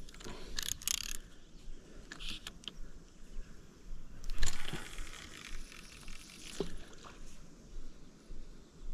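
Handling noise of a fishing rod and spinning reel: scattered small clicks and rustles, with one louder rustling swish about four and a half seconds in.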